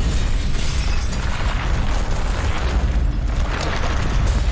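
A loud, sustained booming rumble with a rushing noise on top, swelling a little about a second in and again near the end. It is a dramatic television sound effect.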